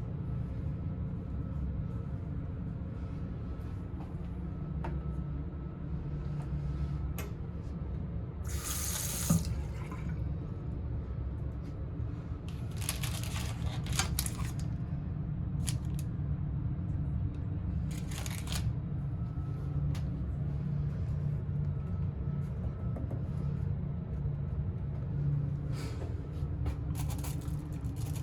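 A water tap turned on and off at a cabin washbasin, running in four short spurts over a steady low hum.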